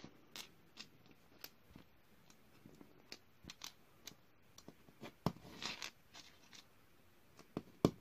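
Small plastic Lego 1x2 plates being picked up off a hard floor and pressed together in stacks: scattered sharp clicks with a few short scrapes.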